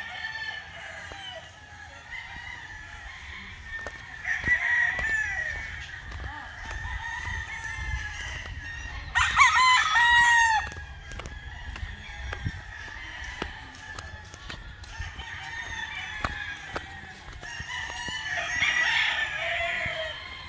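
Gamecock roosters crowing one after another, some near and some farther off, over a steady background of distant crowing. The loudest crow comes about nine seconds in, with others about four seconds in and near the end.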